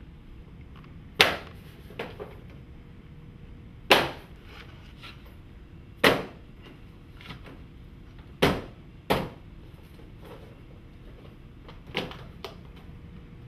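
Sharp single knocks on stone-look cladding panels as they are fitted and fixed along the bottom of a wall: about nine separate strikes, mostly a second or two apart, with two close pairs.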